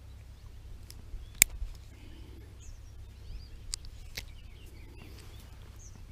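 A few sharp clicks of metal forceps working a hook out of a bullhead's mouth: the loudest about a second and a half in, two more near four seconds. Faint bird chirps and a low steady rumble lie underneath.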